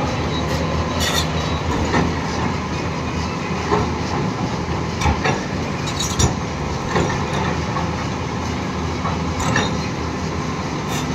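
Volvo 480 tracked excavator's diesel engine running steadily under working load, with several sharp knocks and scrapes of the steel bucket against broken marble.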